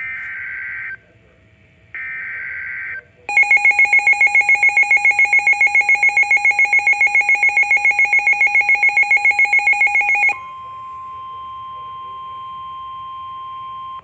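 Midland NOAA weather radio alerting for a severe thunderstorm warning: two short buzzy data bursts of the EAS/SAME header, then a loud fast-pulsing beeping alarm, about six or seven beeps a second for some seven seconds, then a steady single-pitch warning tone that cuts off near the end.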